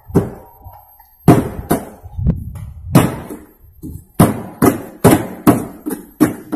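A rapid, irregular series of sharp knocks, about a dozen, each with a short ring after it, coming closer together in the second half.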